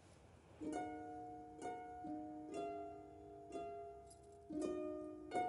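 Soft background music of plucked notes, a new chord roughly once a second, quickening into a short run of notes near the end.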